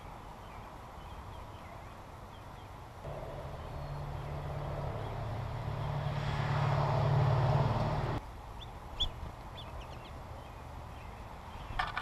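A low, steady motor hum comes in about three seconds in and grows louder. It stops abruptly a little after eight seconds. A few faint, short, high chirps follow.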